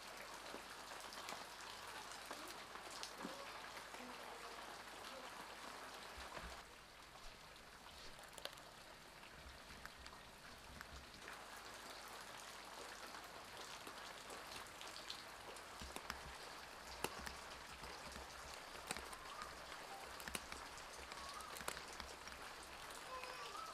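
Scattered light clicks and taps of a kitchen knife slicing a green bell pepper over a small glass bowl, over a steady faint hiss.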